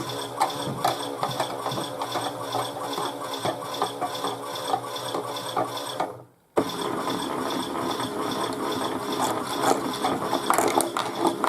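Chad Valley toy washing machine's small motor and plastic gears turning the drum in its tumble action: a steady gear rattle with fast clicking. It cuts out for a moment about six seconds in, then starts again.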